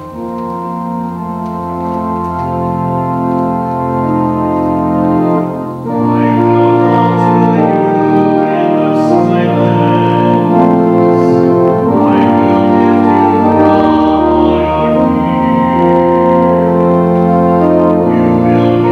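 Church organ playing slow, sustained chords. It grows louder and fuller about six seconds in.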